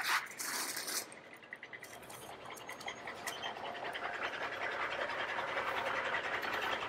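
Bruder Scania R-Series plastic toy timber truck pushed by hand into a toy sawmill shed: a brief scrape at the start, then a fine rattling roll that grows steadily louder.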